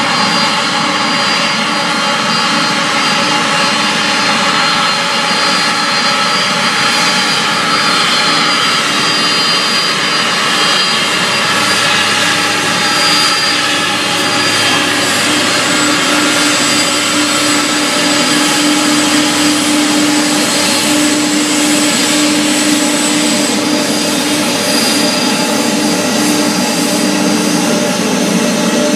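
Jet engines of a Boeing 747 Dreamlifter taxiing past, a loud, steady roar with a whine of several held tones. A high, thin whistle joins for a stretch past the middle.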